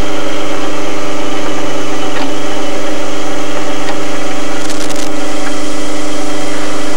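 Drill press motor running with a steady hum while a spring-loaded self-centering bit drills holes in a piano hinge, with a brief cluster of clicks just before 5 seconds in.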